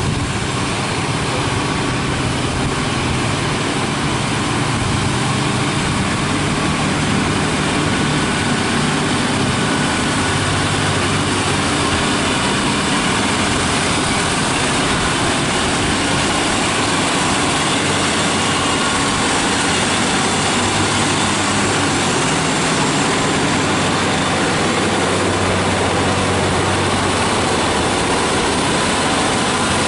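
Diesel engines of heavily loaded MAN TGS 40.440 trucks running steadily at low revs as they crawl up a steep, narrow road, with small shifts in the engine note.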